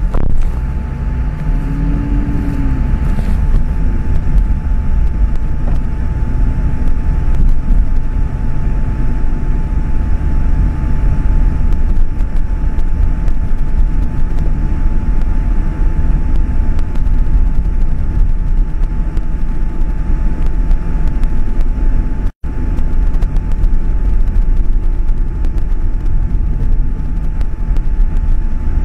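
A convoy of cars driving on fresh asphalt: steady engine and tyre noise with a heavy low rumble. A thin, steady high tone runs through it, and the sound drops out for an instant about two-thirds of the way through.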